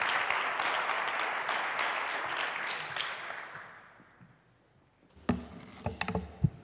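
Audience applauding, the clapping dying away over the first four seconds. A few low thumps and knocks follow near the end.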